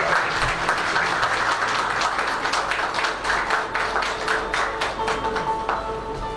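An audience applauding over background music. The clapping thins out about five seconds in, leaving the music's held notes.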